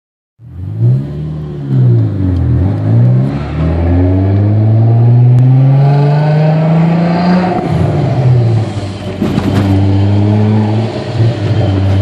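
Audi A4 wagon's engine through an aftermarket exhaust, heard from inside the cabin: two quick revs up and down, then a long pull rising in pitch for about four seconds. The pitch drops sharply at a gear change, and the engine runs steadily after it.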